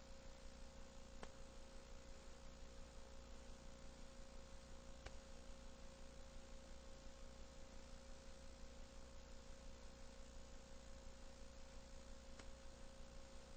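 Near silence on an old transferred videotape: a steady electrical hum and faint hiss, with three faint clicks.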